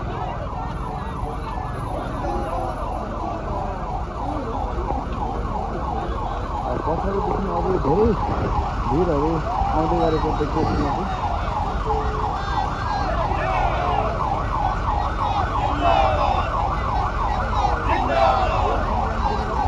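A siren warbling in fast, repeating rising-and-falling sweeps over the low rumble of a marching crowd and road traffic.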